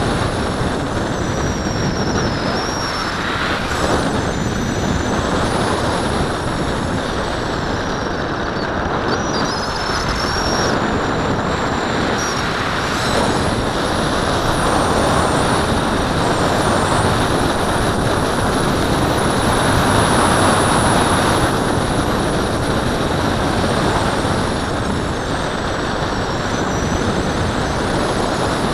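Air rushing over an onboard camera on a model glider in flight: a steady wind roar with thin high whistles that slide up and down in pitch. The roar swells a little about two-thirds of the way through.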